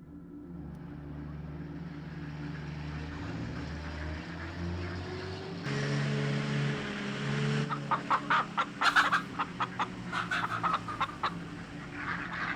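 Chickens clucking in a run of short, quick calls starting about eight seconds in, over a steady low hum.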